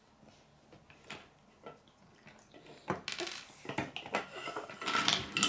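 Plastic K'nex construction pieces clicking and clattering against each other and the wooden table as hands rummage through and fit pieces. There are a few faint clicks at first, growing to a busy, louder clatter about three seconds in.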